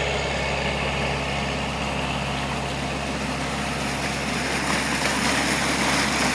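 Steady hum of a Kubota L4600 diesel tractor running a PTO-driven 12-inch water pump. Water rushes out of the corrugated discharge pipe, growing louder near the end.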